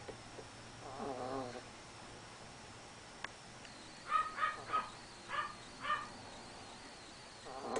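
Yorkshire terrier making small vocal sounds: a wavering drawn-out note about a second in, then a run of five or six short, high-pitched squeaks in quick succession a few seconds later.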